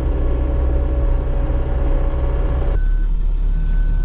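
A work vehicle's engine running steadily. About three-quarters of the way through, the engine note drops to a low rumble and a reversing alarm starts, giving two high beeps near the end as the vehicle backs up.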